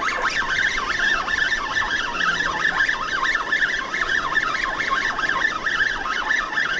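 Penn Battle II 5000 spinning reel being cranked fast, its gears whirring in a rapid warbling tone that wavers up and down without a break as line is wound in against a hooked fish.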